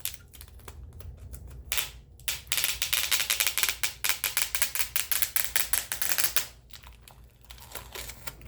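Plastic tape being slowly peeled off a vinyl record's shrink-wrapped sleeve, giving a rapid crackling run of ticks from about two seconds in until about six seconds, with a few single clicks before it.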